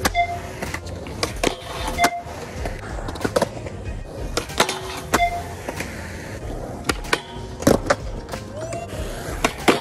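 Skateboard wheels rolling on concrete, with repeated sharp clacks of the board popping and landing during handrail tricks, under background music.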